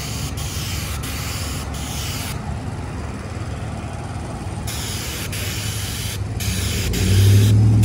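Asphalt sealcoat hissing out of a hand-held spray wand on a pressurised hose, cut off for about two seconds a little after two seconds in and twice more briefly near the end as the trigger is released. A low rumble runs underneath, with a steady hum growing louder near the end.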